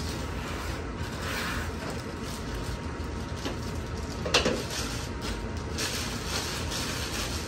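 Clear plastic packaging bags rustling and crinkling as they are handled, over a steady low hum. One sharp knock comes about four and a half seconds in.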